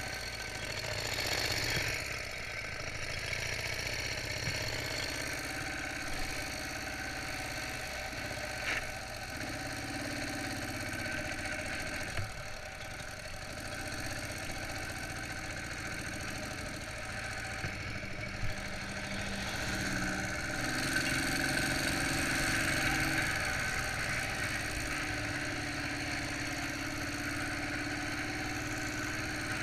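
Ural Tourist motorcycle's flat-twin engine running while ridden along a road, its note shifting up and down as the speed changes. A few short knocks stand out about 9, 12 and 18 seconds in.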